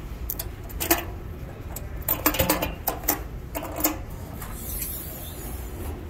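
A run of sharp clicks and knocks over the first four seconds as the clasps on an APV PS 300 seeder's hopper lid are unclipped and the lid is lifted open, over a steady low hum.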